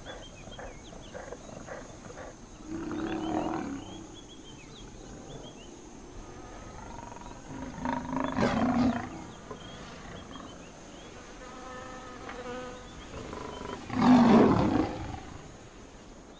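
A lion growling three times, the last growl the loudest, over faint high chirping in the background.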